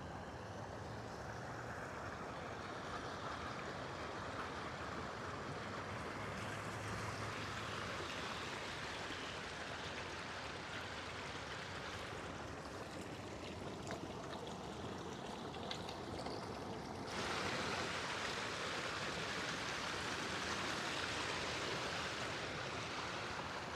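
Steady rush of running water from a stream or small waterfall. It gets suddenly louder and brighter about two-thirds of the way through.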